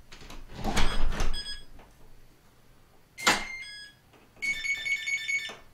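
Electronic digital door lock beeping on power-up, its batteries just put in: a few short electronic beeps, then a quick run of alarm beeps over the last second or so, taken as an uneasy alarm sound, as if something is wrong. Knocks and rattles of the lock being handled come first.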